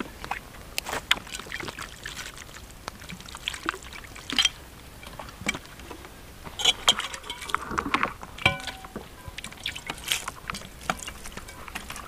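Water poured from a plastic bottle, splashing and trickling over vegetables and a plate being rinsed, with clicks and crinkles of the plastic bottle being handled.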